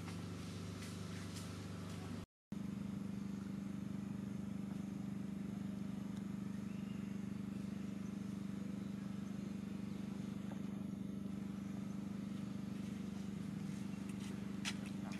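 Steady low mechanical hum, like an engine running nearby, which drops out briefly about two seconds in and then carries on unchanged.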